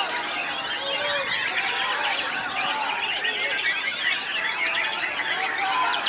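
Many caged white-rumped shamas (murai batu) singing at once: a dense, unbroken chorus of overlapping whistles, trills and chirps, with some lower whistled notes gliding up and down.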